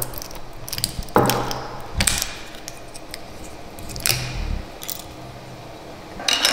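A foil cutter turned around the neck of a wine bottle, slicing the foil capsule, and the cut foil top then pulled off: a string of clicks and scrapes, the sharpest about a second in. A louder sound starts just before the end.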